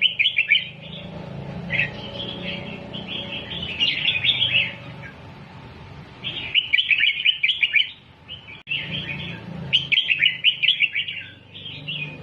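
Red-whiskered bulbul singing: about six or seven quick phrases of rapid, bright chirping notes, each a second or so long, with short pauses between them.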